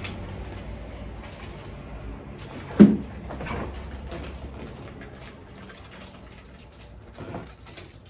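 Rustling and light clicks as clip-on decorations are pulled off an artificial Christmas tree, with one loud thump about three seconds in.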